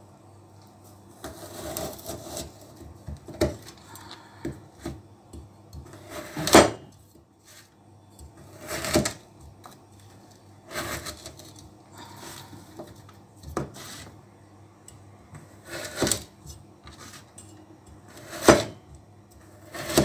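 A large kitchen knife cutting through frozen oranges on a plastic cutting board: scraping cuts and several sharp knocks a few seconds apart as the blade strikes the board.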